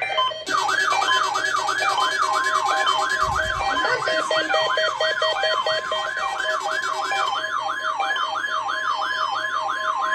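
Several NOAA weather alert radios going off at once for the National Weather Service weekly test. Overlapping alarms sound together: a siren-like warble sweeping up and down about three times a second, fast beeping and chirping patterns, and the broadcast's steady 1050 Hz warning alarm tone, which comes in about two seconds in. There is a dull thump about three seconds in.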